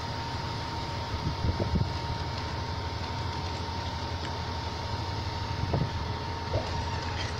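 Heavy diesel engine running steadily at low speed, with a thin steady high whine over it. A few dull knocks stand out about a second and a half in and again near six seconds in.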